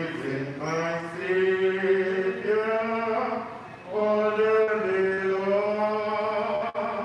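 People singing a slow hymn together in two long phrases of held notes, with a short breath between them about halfway through.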